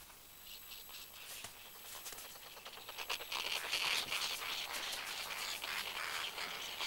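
Snow petrel scratching and scraping at snow while digging out its nest crevice: a quiet, dry scratching with many small clicks, growing louder about three seconds in.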